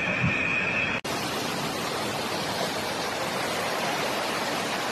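Floodwater rushing in a muddy torrent, a steady even rush of water noise. The sound drops out for an instant about a second in and the rush carries on at once.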